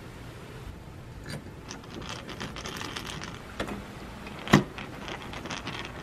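Screws being driven by hand with a screwdriver into a deadbolt's interior mounting plate: faint rasping of the turning screw, with one sharp click about four and a half seconds in.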